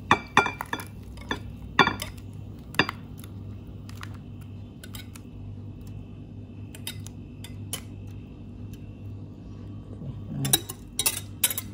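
Wire whisk clinking and scraping against a saucepan and glass dish as thick, hot custard is poured out and spread. Scattered clinks come thickest in the first three seconds and again near the end.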